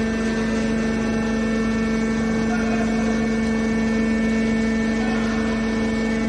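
Hydraulic steel wire scrap baler running: a steady hum with a constant pitch.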